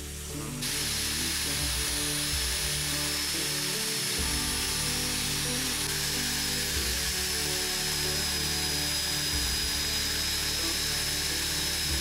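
Electric angle grinder with a polishing pad buffing a steel knife blade: a steady high whine over a hiss that starts suddenly about half a second in. Background music plays underneath.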